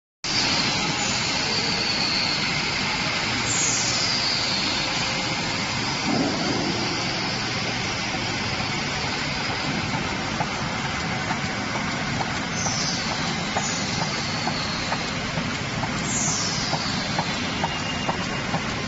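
Beverage filling line running: a steady mechanical noise with a faint regular ticking about twice a second in the second half, and a few high whistles falling in pitch.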